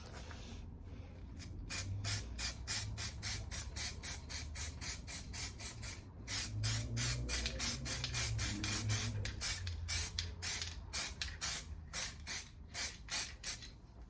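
Aerosol can of weld-through primer spraying in short, rapid hissing bursts, about three a second, with a brief pause partway through.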